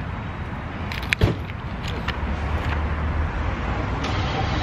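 Steady low rumble of street traffic that grows a little louder toward the end as a car nears, with a few sharp clicks about a second in and again around two and a half seconds.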